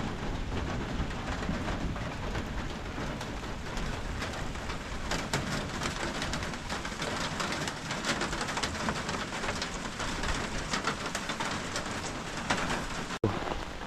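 Steady rain falling, with many close drops ticking irregularly on a surface.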